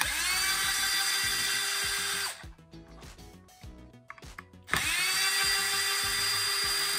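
Cordless power screwdriver with a 2.0 mm hex bit running twice, backing out two small hex screws. Each run spins up quickly to a steady whine that lasts about two seconds.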